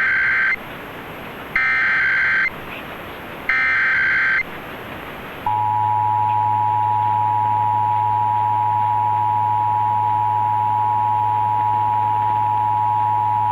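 Emergency Alert System Required Monthly Test heard over AM radio: three bursts of the digital SAME header tones, each about a second long and a second apart. About five and a half seconds in, the steady two-tone EAS attention signal begins, with a low hum under it.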